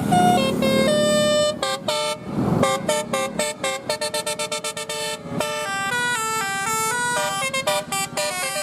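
Bus telolet horn (a set of tuned electric air horns) playing a melody: a few held notes, then a fast run of short staccato notes, then a smoother stepping tune near the end. This is the newest telolet tune played on the Kids Panda bus.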